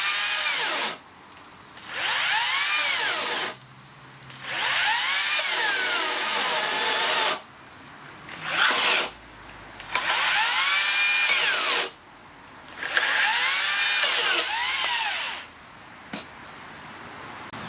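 Makita 18V brushless top-handle cordless chainsaw cutting through a timber post. Its motor whine rises, then sags in pitch as the saw is pushed hard into the cut towards stalling, then is eased off; this repeats about seven times with short breaks.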